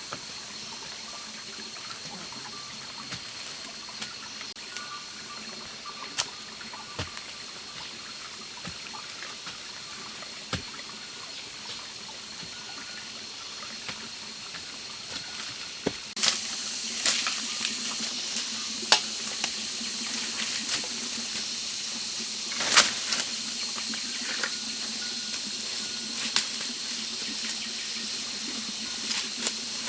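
Water trickling steadily, with scattered sharp clicks and knocks; it becomes louder and fuller about sixteen seconds in.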